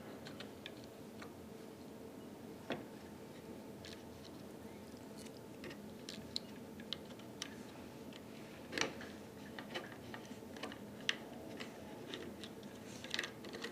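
Faint, irregular clicks and taps of a small screwdriver working on the plastic body of a Syma X8C quadcopter being taken apart, with a few sharper clicks scattered through.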